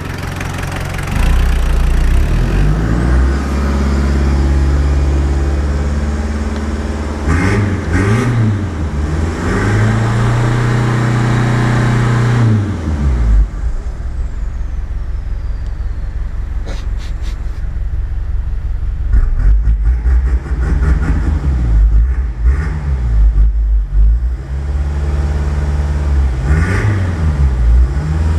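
Mitsubishi Space Wagon engine running and being revved up and down several times, with one longer rev held for a couple of seconds before dropping back. The newly fitted alternator is charging under the revs, with the voltmeter at 14.2 V.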